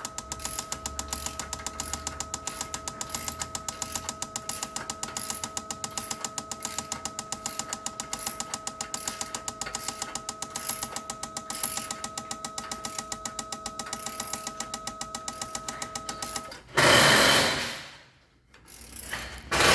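Fuel injectors pulsing on a test bench, an even rapid clicking of about seven clicks a second over a steady electric whine, at about 880 RPM with a 2.4 ms opening time and roughly 3 bar of pressure. About three seconds before the end the clicking and whine stop and a short loud hiss follows.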